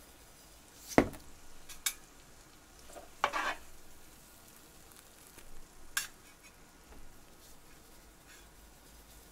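French toast frying in butter in a pan with a faint sizzle, broken by sharp clicks of a utensil against the pan, the loudest about a second in, and a short scrape a little past three seconds.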